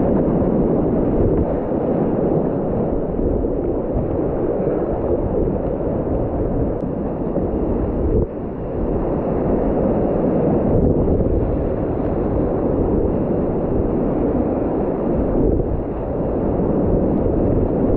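Whitewater rapids rushing and splashing around a kayak, heard up close with wind buffeting the microphone; the rushing drops briefly about eight seconds in, then comes back.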